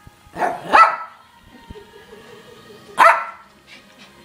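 Small dog barking: two quick sharp barks about half a second in, then a single bark about three seconds in.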